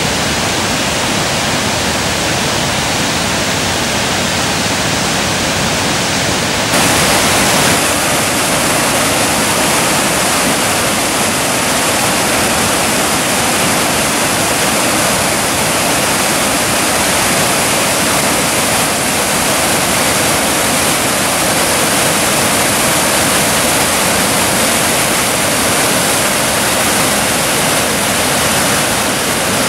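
West Burton's Cauldron Falls waterfall rushing steadily, a loud constant roar of falling water that turns a little brighter and louder about seven seconds in.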